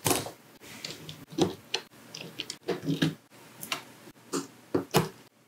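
LEGO Technic plastic parts clicking and snapping as pins are pulled out of and pushed into lift arms: a string of irregular sharp clicks with small rattles between them.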